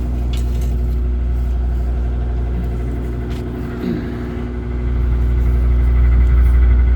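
An engine running steadily with a deep, even hum that gets louder about five seconds in.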